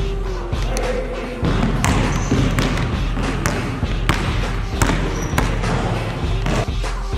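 A basketball bouncing on a hardwood gym floor, a run of irregular sharp bounces that echo in the large hall. Background music is heard at the start and again near the end.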